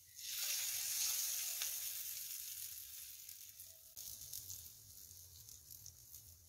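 Hot oil with chilli powder poured from a ladle over chicken kebabs on yogurt, sizzling with scattered crackles: loudest about a second in, then slowly dying away as the oil cools.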